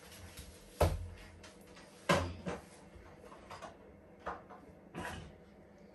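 A series of short, dull thumps and knocks from a crawling baby's hands slapping hard surfaces: the tiled floor and the washing machine's glass door. The loudest knocks come about a second in and about two seconds in, with lighter ones near the middle and end.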